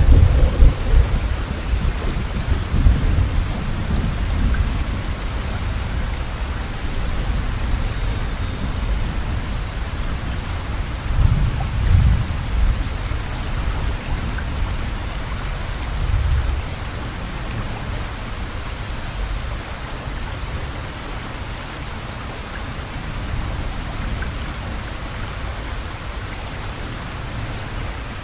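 Steady rainfall with thunder rolling under it: low rumbles swell at the start, again a few seconds in and twice around the middle, then die away while the rain keeps on.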